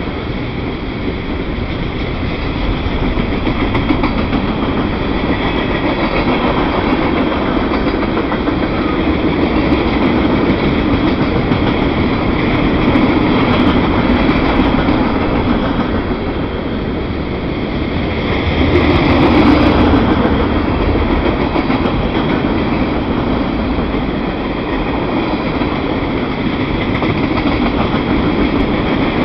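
Freight cars of a long mixed freight train (covered hoppers, boxcars, tank cars) rolling past close by: a steady, loud rumble of wheels on rail, swelling louder about two-thirds of the way through.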